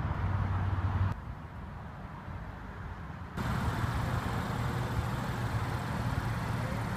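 Steady low hum of vehicle engines and road traffic outdoors. The sound drops away abruptly about a second in and returns a couple of seconds later at edit cuts.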